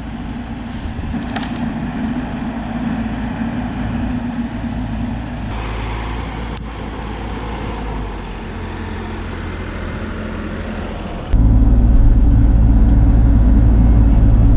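Bobcat E42 mini excavator's diesel engine running steadily. About eleven seconds in, the sound jumps suddenly much louder and deeper.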